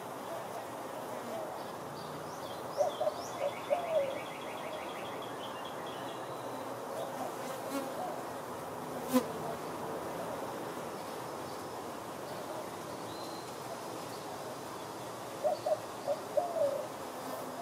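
Honey bees buzzing around a hive entrance: a steady background hum, with louder buzzes in quick clusters as bees fly close past, about three seconds in and again near the end. A single sharp click about nine seconds in.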